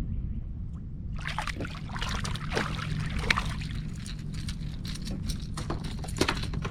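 Water splashing and sloshing beside a fishing kayak in quick irregular bursts, starting about a second in, over a steady low rumble.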